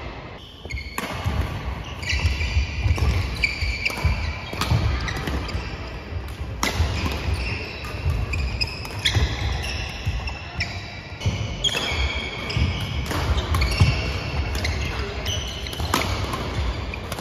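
Badminton doubles rally: rackets strike the shuttlecock with sharp cracks, while shoes squeak and feet thud on the wooden court floor, all with a hall's echo.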